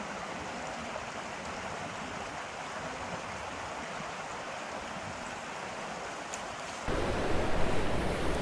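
Creek water running steadily. About seven seconds in, it gives way abruptly to a louder, deeper rushing noise.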